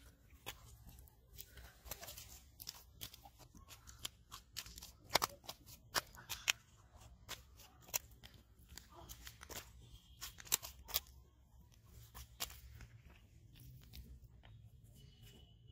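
Freshly landed common carp flopping on a dry earthen riverbank: irregular sharp slaps and crunchy thumps against the soil, some in quick clusters, loudest around the middle.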